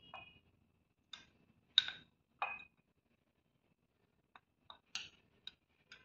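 Steel spoon clinking against a glass jar and a ceramic bowl while spooning powder into the jar: three clinks in the first half, the loudest about two seconds in, then a few lighter ticks near the end.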